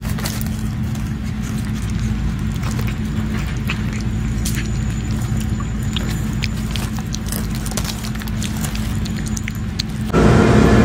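A cat eating soft wet cat food eagerly from a metal dish: many quick small clicks and smacks of chewing and licking over a steady low hum. Near the end the sound switches abruptly to a louder, noisier background.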